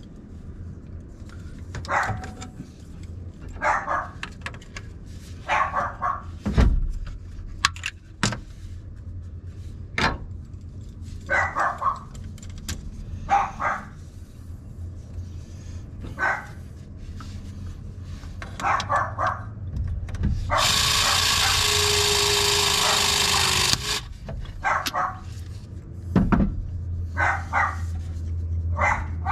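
A dog barking over and over, in short runs of barks every couple of seconds, with a few sharp knocks in between. About two-thirds of the way in, a battery pipe press gun runs for about three seconds as it crimps a copper press fitting.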